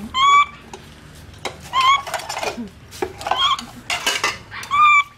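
Baby macaque giving about four short, high calls, roughly a second and a half apart, over the clatter of dishes being washed in plastic basins.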